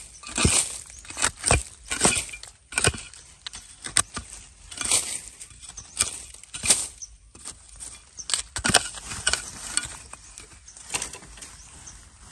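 A metal blade chopping into dry soil and leaf litter to dig out a bamboo shoot, in repeated sharp strikes about one a second.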